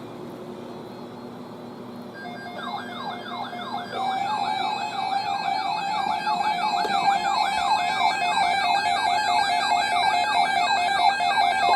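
Weather radio alert alarm going off as a new alert comes in: a fast, evenly repeating falling siren-like warble over steady tones, about two sweeps a second. It starts about two seconds in and grows louder over the next two seconds.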